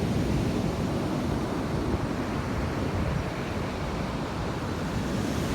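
Ocean surf washing onto a beach, a steady rush of noise, with some wind on the microphone.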